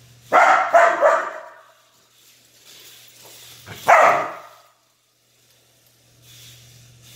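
Aussiedoodle puppy barking in play: three quick barks about a third of a second in, then a single bark about four seconds in.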